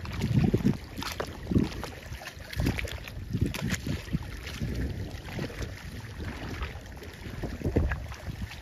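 Wind buffeting the microphone in irregular low rumbling gusts, with a few faint ticks over it.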